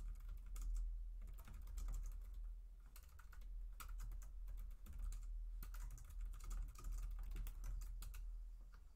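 Typing on a computer keyboard: a run of quick, irregular keystrokes with short pauses between words, over a steady low hum.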